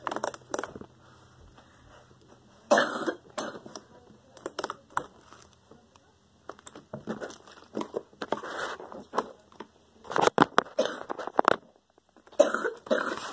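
Orange slime being stretched and squished by hand on a tabletop: irregular wet squelching and popping, with a few short coughs among the bursts.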